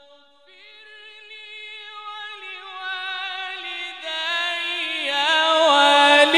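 A male Quran reciter's voice in melodic Egyptian-style tilawat, holding one long, ornamented line without a breath. It swells steadily louder while the pitch slides slowly downward in small turns.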